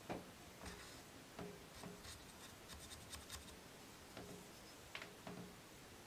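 Faint scattered taps, clicks and short light scratches of small objects being handled, with a louder tap at the start and a quick run of fine clicks near the middle.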